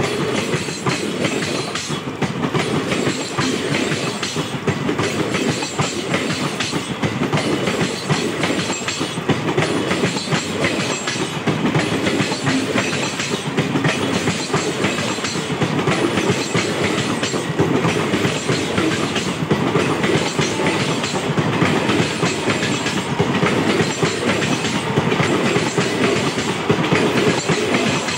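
Passenger coaches of an express train running past at speed: a steady, loud noise of wheels on the rails.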